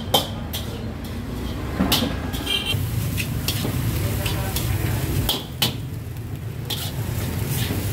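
Stir-frying in a wok: a metal spatula clanks and scrapes against the pan at irregular intervals, over a steady low hum.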